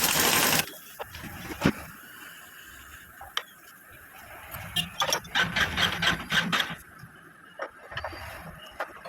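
Hand tools and metal engine parts clicking and scraping during motorcycle engine work. There is a short rush of noise at the start, scattered knocks, and a quick run of rasping strokes about five seconds in.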